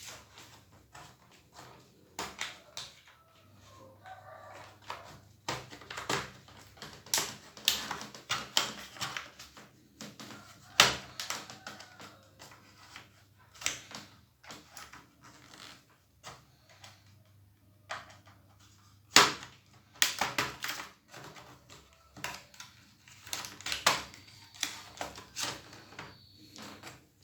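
Plastic laptop case being pried apart by hand, with irregular sharp clicks and snaps as the snap-fit clips release and the plastic panels knock together.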